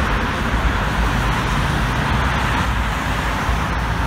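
Road traffic on a multi-lane city street: cars and vans driving past, making a steady, even noise of engines and tyres.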